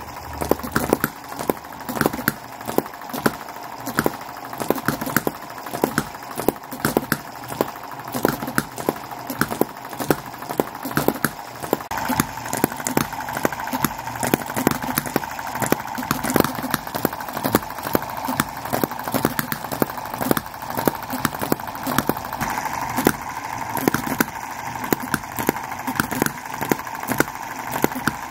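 Miniature OKMO/Microcosm model hit-and-miss petrol engines running. There are sharp firing pops at uneven intervals, a few a second, over a steady mechanical whir.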